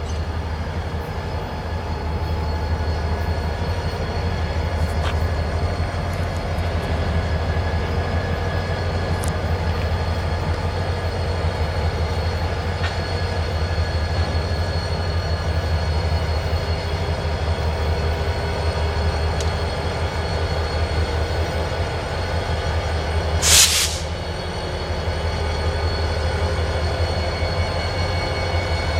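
Freight train running steadily with a low, continuous rumble and faint steady tones above it. About 23 seconds in comes one short, loud burst of hiss.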